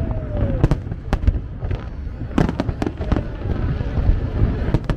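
Aerial fireworks display: many sharp bangs at an irregular pace over a steady low rumble, with a descending whistle dying away about half a second in.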